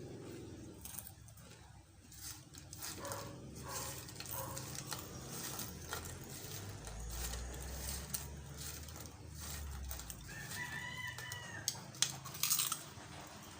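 Potato chips crunching and being chewed close to the microphone, with irregular crisp cracks. A rooster crows once in the background about ten seconds in.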